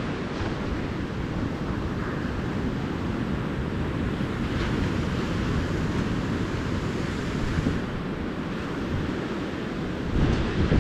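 Calm ocean surf washing steadily onto a beach, with brief gusts of wind buffeting the microphone near the end.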